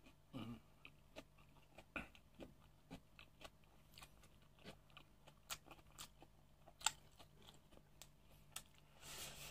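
Faint close-miked chewing of a crisp fried fish spring roll (lumpiang isda), mouth closed: scattered soft crunches and wet mouth clicks, the sharpest one about seven seconds in, with a short rustle just before the end.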